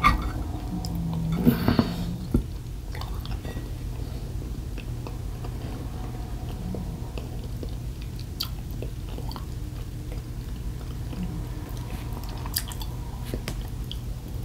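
A person chewing food and eating with a fork, with a few light clicks, over a steady low hum.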